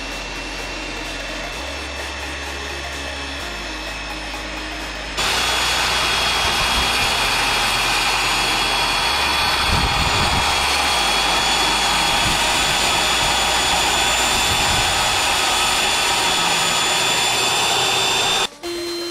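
Low background music at first; about five seconds in, a corded Ridgid circular saw cuts loudly and steadily through a white plastic mounting plate, with a steady high motor tone, until the sound cuts off abruptly near the end.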